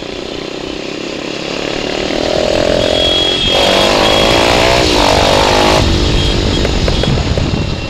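220cc motorcycle with an aftermarket exhaust accelerating, its engine note climbing and getting louder. Near the end the throttle closes and the exhaust pops and crackles with backfire 'fire shots'.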